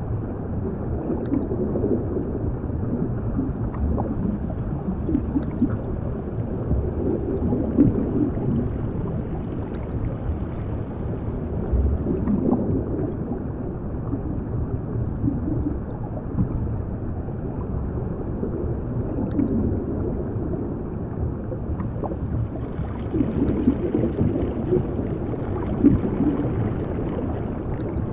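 Underwater ambience: a steady, muffled low rumble with irregular bubbling and gurgling swells throughout.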